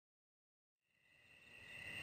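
Dead silence for the first part, then crickets chirping fade in: a steady high chirring that grows louder toward the end, a night-time insect ambience.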